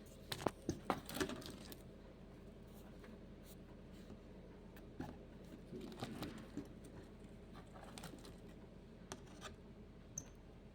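Faint scattered clicks and scratching sounds, bunched about half a second to a second and a half in and again around five to six seconds, with a brief high chirp near the end.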